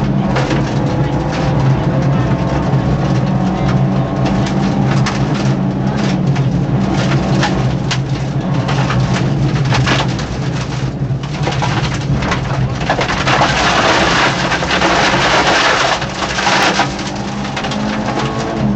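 Peugeot 205 rally car's 1.9-litre four-cylinder engine running hard at speed, heard inside the cabin, under a constant crackle and rattle of stones and loose surface hitting the car. The surface noise grows loudest a few seconds before the end, then eases briefly.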